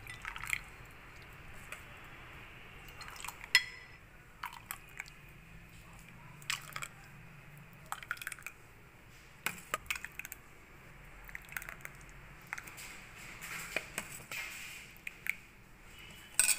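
Thick gond rab being ladled into a glass mug: soft pouring and dripping, with scattered sharp clinks and taps, the loudest about three and a half seconds in and another near the end.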